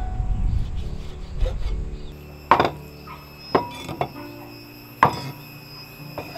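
Heavy cleaver cutting pork on a thick wooden chopping block: a dull, busy cutting noise at first, then four sharp chops into the block about a second apart.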